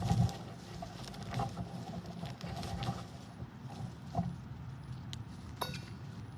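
Irregular rustling and scraping of hands digging through loose garden soil and pulling at sweet potato vines and roots, with scattered sharp clicks and snaps.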